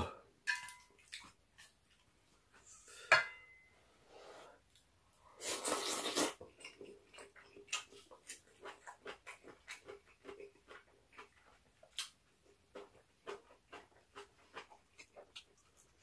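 Close-up eating sounds: chopsticks clicking against the pan and rice bowl, a long noisy slurp of noodles about five and a half seconds in, then quick wet chewing and lip smacks, several a second.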